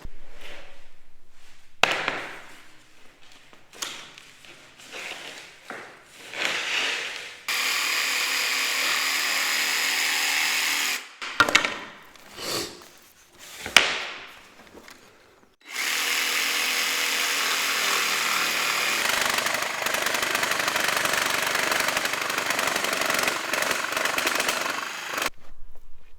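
A power tool running in two long, steady stretches, the first about three and a half seconds and the second about ten, with short bursts and knocks between them.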